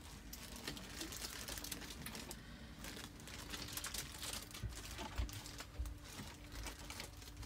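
Faint scattered clicking and rustling, with a few soft low thumps in the second half.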